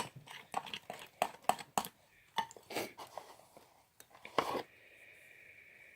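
Clear slime being stirred in a bowl as it is activated: irregular sticky clicks and squelches of the utensil working the slime.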